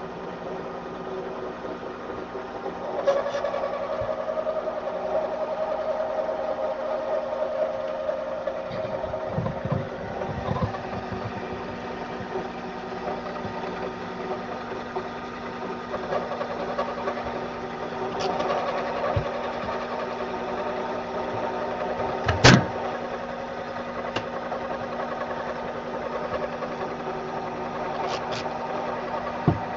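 Metal lathe running with a steady motor hum while a form cutter shapes a small drip oiler part. A steadier, higher cutting tone comes in twice, and there is one sharp click about two-thirds of the way through.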